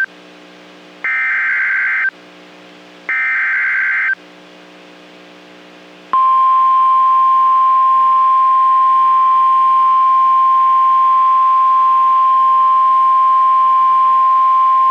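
Emergency Alert System SAME header on NOAA Weather Radio: two one-second bursts of buzzy data tones about a second apart. About two seconds later comes a steady single-pitch warning alarm tone, held for about nine seconds. It signals that a severe thunderstorm warning is about to be read.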